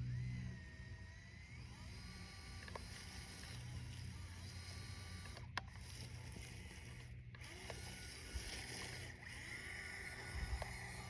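Brushless electric motor and drivetrain of a 1/18-scale RC crawler running faintly as it drives, with thin whining tones that shift in pitch with the throttle and a few light clicks.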